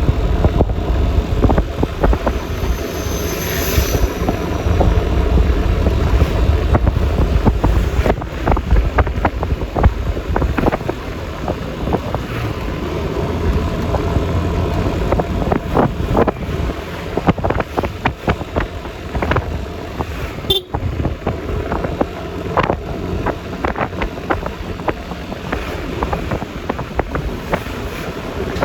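Riding along on a Yamaha Lexi LX 155 scooter: wind buffeting the phone microphone over the scooter's single-cylinder engine, tyre and road noise, with many small knocks. There is a brief high whistle about three seconds in and a sharp click about twenty seconds in.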